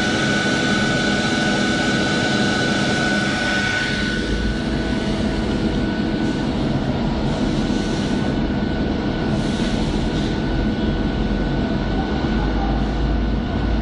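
Bench-top spot laser welding machine running, a steady mechanical hum from its internal water cooler, with a thin high whine that fades about halfway through.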